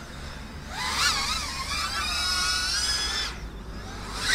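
Eachine Lizard 105S mini FPV racing quad's brushless motors and propellers whining in flight on a 3S battery, the pitch wavering up and down with the throttle for about three seconds. The pilot hears a slight vibration when accelerating and is unsure whether it comes from the props; he later suspects flex in the chassis arms.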